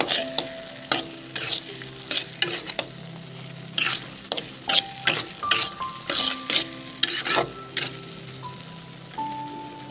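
A spatula stirring and scraping through fish innards frying in oil in a metal wok, with a steady sizzle under irregular scraping strokes.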